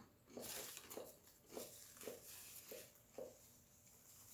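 A person chewing food with soft, wet chews about twice a second.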